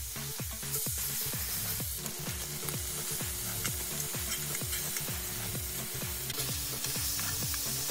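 Boneless chicken thighs sizzling steadily in hot oil in an enameled cast-iron skillet as the pieces are laid in and turned over with metal tongs.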